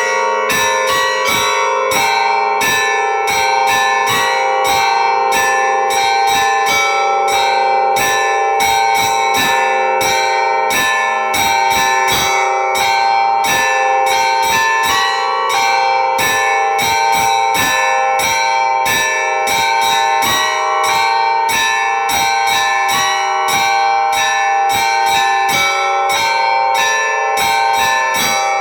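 Church bells ringing a continuous peal: many bells struck in quick succession, several strokes a second, their tones ringing on and overlapping at an even loudness.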